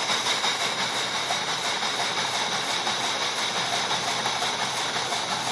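Sound unit in a Bachmann Big Hauler coal tender playing its electronic steam-locomotive chuffing through the tender's small speaker, a steady hissing sound.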